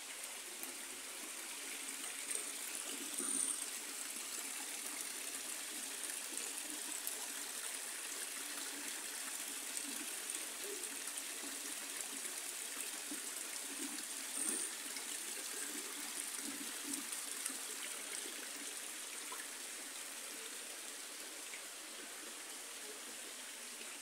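Small stream of water trickling steadily into a planted pond.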